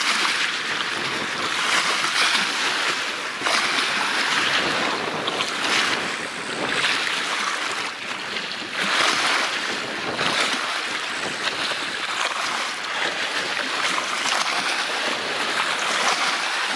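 Wind-driven waves splashing and lapping, with a steady rush of wind. The sound swells and eases every couple of seconds.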